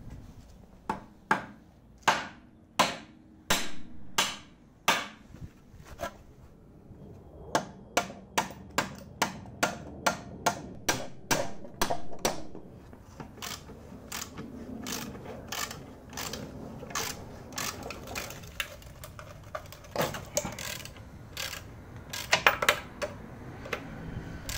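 Hand tools working on a rusty car front suspension: a long run of sharp metallic clicks and knocks, about two a second at first, then faster, then softer for a while. Near the end the clicks come in quick clusters as a ratchet wrench is turned on the coil-spring assembly.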